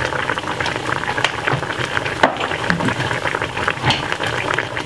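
Lamb in red wine sauce sizzling and bubbling in a saucepan on medium heat: a steady, dense crackle with a couple of sharper clicks.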